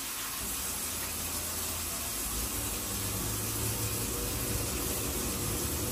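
Glow-worm Micracom gas combi boiler firing back up after a lockout reset with the gas turned back on: a low fan hum comes in about half a second in, over a steady hiss, as the burner relights.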